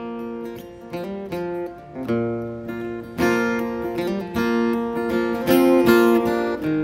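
Acoustic guitar playing an instrumental break in picked notes and strums, quieter at first and getting louder about three seconds in.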